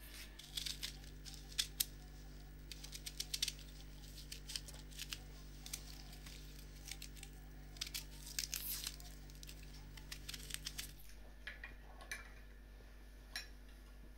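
A small knife peeling and cutting a raw onion: irregular crisp crackles and snaps of the papery skin and the firm flesh, coming thickly at first and thinning out after about eleven seconds.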